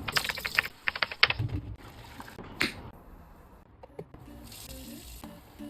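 Water running and splashing at a sink, with a quick run of sharp clicks and clatter in the first second or so and another splash about two and a half seconds in, then quieter.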